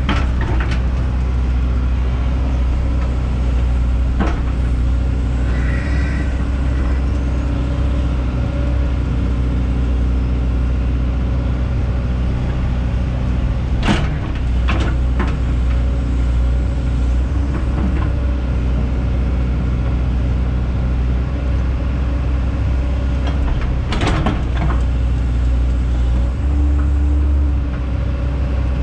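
Hyundai 140 crawler excavator's diesel engine running steadily while digging out topsoil. There are sharp metal clanks from the bucket and linkage about 14 and 24 seconds in, and the engine note shifts briefly near the end.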